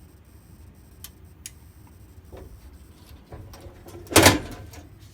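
Faint clicks and handling knocks, then one loud sharp clack about four seconds in with a short ring-out: a fire alarm pull station being reset by hand. The alarm is silent.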